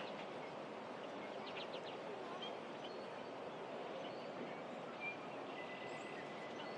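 Steady outdoor hiss of wind through grass and trees, with a few faint bird chirps: a quick cluster about a second and a half in, short high notes later, and a thin held whistle near the end.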